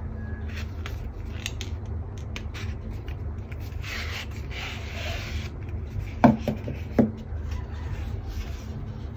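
Cardboard packaging handled by hand: a black inner box rubbing as it slides out of its cardboard sleeve, with a soft scraping hiss midway, then two short knocks as the cardboard is set against the hard surface, over a steady low background hum.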